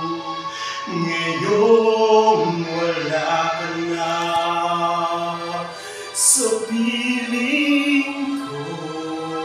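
A man singing a slow melody, holding long notes that slide up and down between pitches, with a short breathy hiss about six seconds in.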